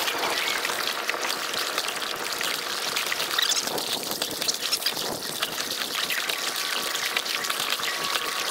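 Kayak paddling: a double-bladed paddle dipping in on alternate sides, with water splashing and trickling off the blades and lapping at the hull in a steady wash.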